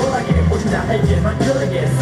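K-pop dance song with a heavy bass beat and vocals, played loud through a stage sound system during a live performance.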